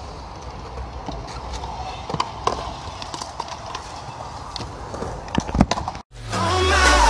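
Scooter and skateboard wheels and decks clattering and knocking on skatepark concrete, in scattered sharp hits, the loudest a cluster about five and a half seconds in. Just after six seconds it cuts off and music begins.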